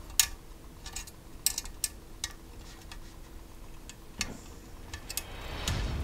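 Small metal clicks and taps from a screw and Allen key against the metal hull parts of a model ship as a tiny screw is set inside the hull, a few quick clicks in the first half. Near the end comes a swelling rustle of hands handling the model.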